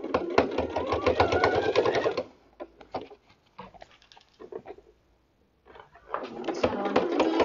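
Janome electric sewing machine stitching a seam, the motor whine rising in pitch as it speeds up. About two seconds in it stops, with only a few light clicks for about three and a half seconds, then starts stitching again and speeds up near the end.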